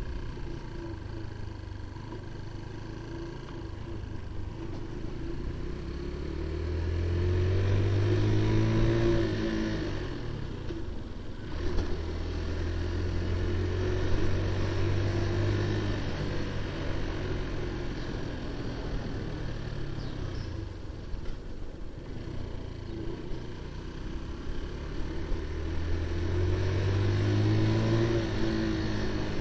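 QJ Motor SRV 125 motorcycle's engine and exhaust under way, pulling up in revs with a rising pitch, dropping back sharply, running steady, then easing off and building up again near the end. It has a fairly high-pitched, mild exhaust note.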